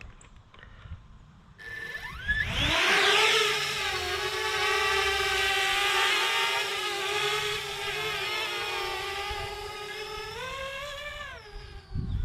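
Parrot Bebop 2 quadcopter's motors and propellers spinning up with a rising whine as it takes off, then a steady multi-tone whine while it flies. The pitch rises briefly near the end, then the sound cuts off suddenly.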